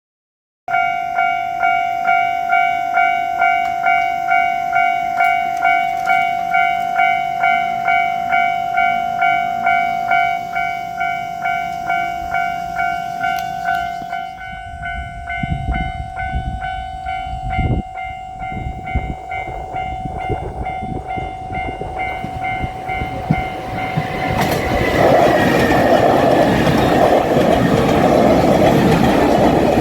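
Japanese railway crossing warning bell ringing steadily, about two strokes a second. About halfway through, the rumble of an approaching diesel limited-express train builds under it, and near the end the train passes over the crossing loudly, its engine and wheel noise covering the bell.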